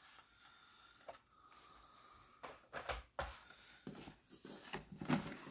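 Cardboard shipping case and plastic blister-card packs of die-cast cars being handled. It is very quiet at first; from about two and a half seconds in come light rustles and small clacks as cards are pulled out of the box.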